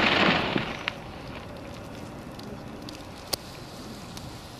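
Hot-air balloon's propane burner blasting and cutting off about half a second in, followed by a low steady hiss with a couple of sharp clicks.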